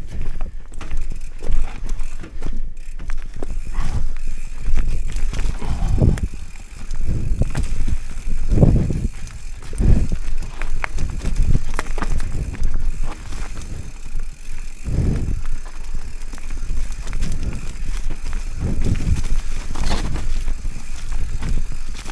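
Mountain bike riding down a rough trail: tyres rumbling over the ground, the bike rattling over bumps, and irregular heavier thumps every few seconds as it hits roots or drops.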